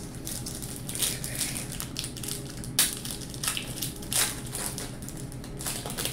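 Wrapper of a 1998 Score football card pack crinkling and tearing as it is ripped open by hand, with sharp crackles about a second in, near three seconds and just after four seconds.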